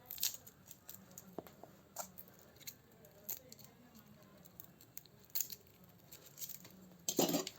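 Garlic cloves being peeled by hand: faint, scattered crackles and ticks of dry papery skin, with a louder cluster of rustling near the end.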